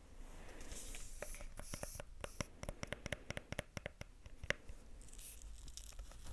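Close-miked ASMR tapping and scratching. Scratchy rustling gives way, about a second in, to a quick irregular run of sharp taps that lasts some three seconds, then scratching again near the end.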